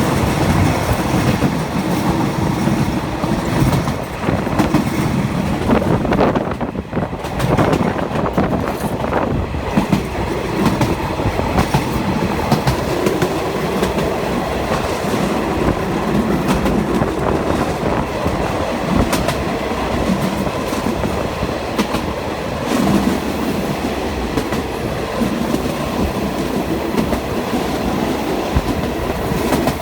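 Train passing close by, its wheels clattering over the rail joints in a steady run of clicks.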